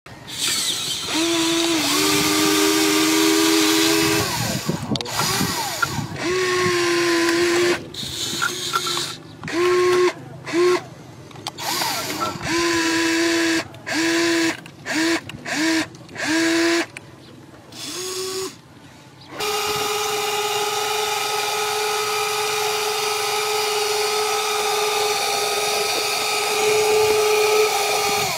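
Electric motors and gearboxes of a remote-control Caterpillar excavator model whining in short stop-start bursts as its arm and tracks are worked. About two-thirds of the way in they settle into one unbroken whine.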